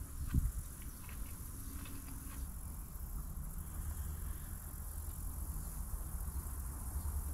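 Steady high-pitched chorus of insects over a low, even rumble, with one short thump just after the start.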